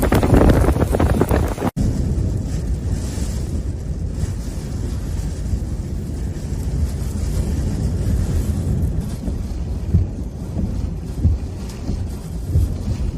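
Typhoon-force wind buffeting the microphone, a heavy low rumble with stronger gusts surging now and then. It briefly drops out about two seconds in, where one clip cuts to the next. Before the break the rush is harsher and reaches higher.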